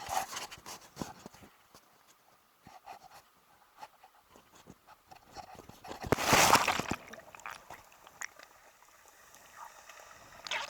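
Sea water with scattered small clicks and light splashing, and one loud splash lasting about a second, about six seconds in: a person diving into the water.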